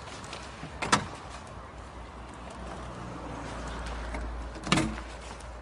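Low, steady outdoor rumble with two short, sharp knocks, one about a second in and a louder one near the end. No alarm sounds.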